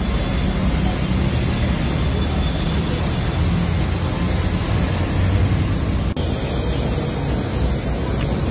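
Steady low rumble and hiss of background noise with no distinct events, cut by a brief dropout about six seconds in.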